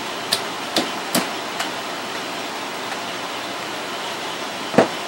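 A few short, sharp clicks and knocks of hard parts being handled: four in the first two seconds and a louder knock near the end, over a steady hiss.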